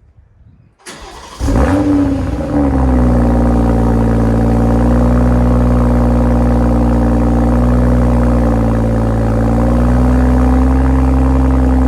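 Stock BMW X3 M40i's turbocharged 3.0-litre inline-six, already warm and in Sport Plus mode, starting up. The starter turns about a second in and the engine catches with a brief flare of revs, then settles into a steady, loud idle.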